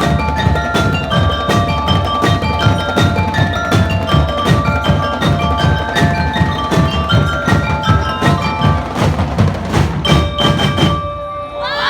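Drum and lyre band playing: bell lyres ring out a melody over rapid marching drums. The music stops about eleven seconds in, and a crowd starts cheering near the end.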